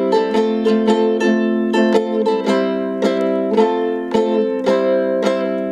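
Ukulele strummed in a quick, steady, busier pattern, its chords ringing between strokes, changing between the C and F chords.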